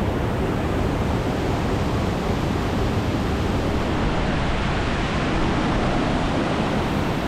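Steady rush of falling water from waterfalls cascading close by.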